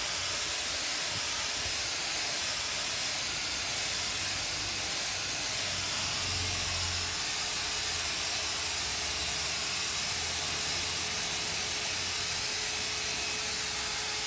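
Electric rotary polisher running steadily, with a constant high whine over a motor hum, as its pad buffs compound on car door paint to take out light scratches.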